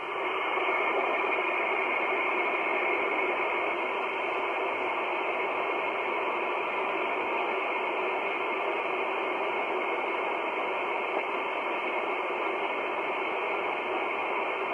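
Shortwave static from a Kenwood R-1000 communications receiver tuned to 8.975 MHz: a steady, even hiss with no transmission on the channel. The hiss is thin and narrow, with no deep bass or high treble, as it comes through the receiver's voice filter.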